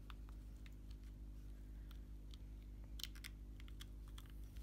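Faint scattered clicks and taps of hands handling an Amazon Echo Dot (2nd generation) and pushing its power cable's plug into the socket on the back, with a small cluster of clicks about three seconds in. A steady low hum runs underneath.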